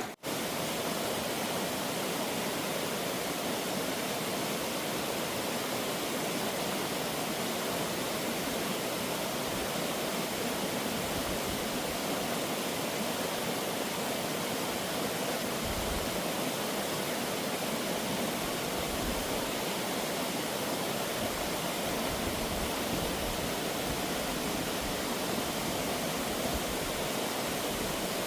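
Waterfall water rushing, a steady, even rush that does not change.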